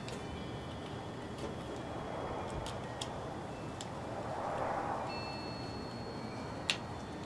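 A few sharp little clicks of a small screwdriver and the plastic housing of a solar LED light being handled, the loudest one near the end, over a low steady background noise that swells softly a little past the middle.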